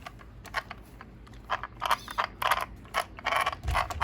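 Hand work on the RC truck's rear drivetrain: a run of short ratchet-like clicks and scrapes, sparse at first, then about two a second from about halfway through.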